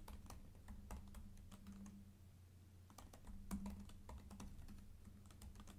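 Faint typing on a computer keyboard: irregular keystroke clicks in quick runs, over a low steady hum.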